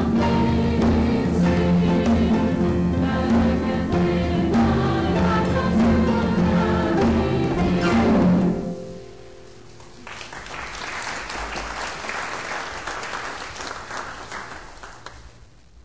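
Congregation singing to two concert harps and a pair of congas, with the conga strokes keeping the beat; the song ends about eight and a half seconds in with a final chord ringing out. Applause follows and fades away.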